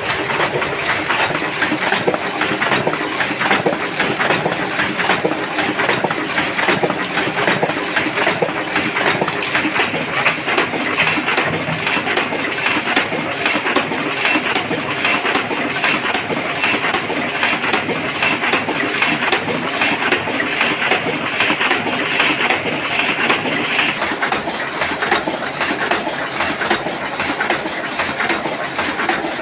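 Heidelberg GTO 52 sheet-fed offset printing press, a 1970 machine, running steadily with a fast, even mechanical clatter and a hiss.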